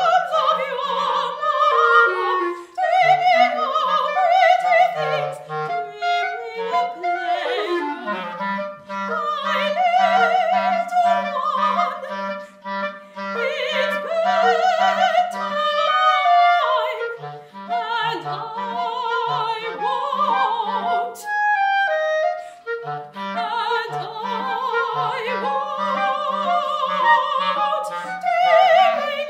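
Operatic soprano singing with vibrato in duet with a clarinet, in a classical chamber piece.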